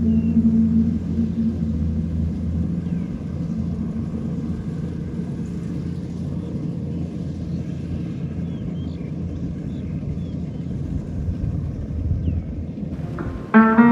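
A steady low rumble with a few faint, short high chirps over it; plucked-string music comes in sharply near the end.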